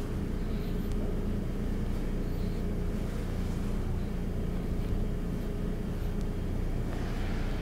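Steady low mechanical hum with a constant drone, with faint sounds of hands working a soft bread dough on a steel worktop.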